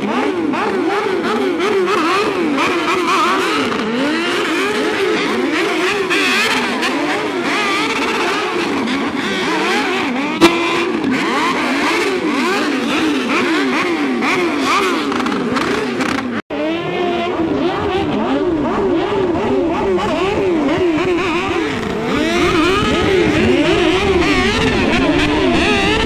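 Several sport motorcycle engines revving hard, over and over, with the pitch climbing and falling again and again during tyre burnouts. There is one sharp pop about ten seconds in.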